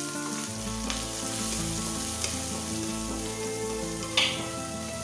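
Chopped onions frying in hot oil in a nonstick pan, a steady sizzle, while a wooden spatula stirs and scrapes them. A few light clicks of the spatula on the pan, and a sharper knock about four seconds in.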